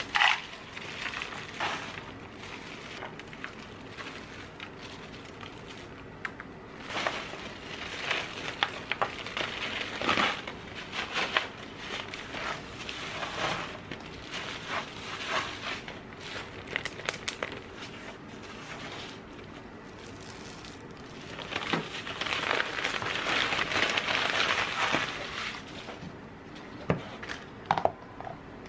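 Homemade granola being scooped by a gloved hand into a plastic zipper bag: crinkling plastic of the glove and bag, with dry granola clusters crunching and rattling, in irregular bursts. A few sharp plastic clicks near the end as a container lid is handled.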